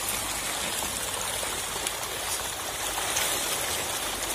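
A dense shoal of tilapia thrashing at the surface of a pond in a feeding frenzy: a continuous crackling patter of small splashes.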